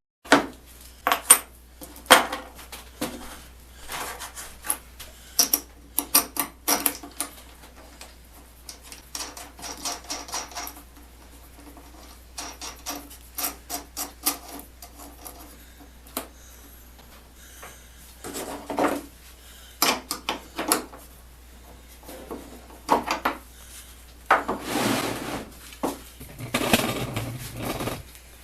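Bolt hardware and a wrench being worked by hand: scattered metal clicks and clinks as a nut is run down a carriage bolt to draw its square shank into a bushing in a wooden door, with a few longer scraping stretches, the longest near the end. A steady low hum runs underneath.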